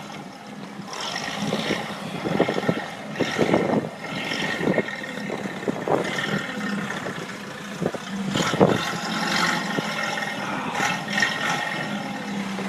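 Forklift engine running steadily, with scattered knocks and clatters.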